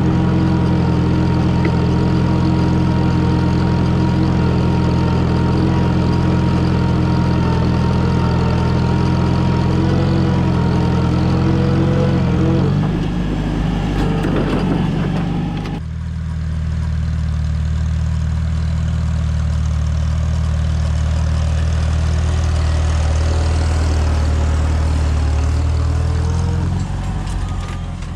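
Farmall tractor engine running steadily while pulling a plow. Its note changes about halfway through.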